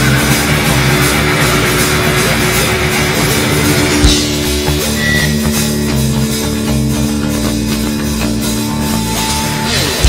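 Melodic heavy metal band playing live: electric guitars and bass hold steady, sustained notes, with a single sharp drum hit about four seconds in and a short downward slide just before the end.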